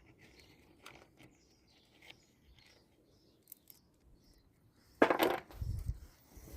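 Hand tools and bolts being worked on a riding mower's battery tray: scattered light clicks and clinks, then one sharp clank about five seconds in, followed by a few dull thumps.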